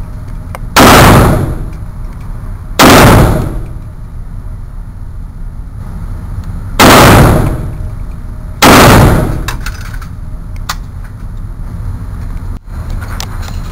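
AK-47 rifle firing four single shots, spaced about two, four and two seconds apart, each a loud crack with a short echo off the concrete of an indoor range. A few faint clicks follow near the end.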